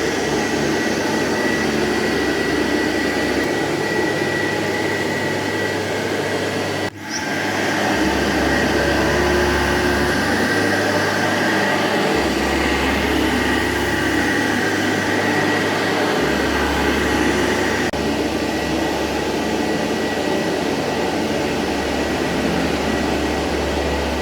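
Vacuum cleaner running steadily on a carpet, with a constant high whine over its rushing noise. It dips briefly about seven seconds in.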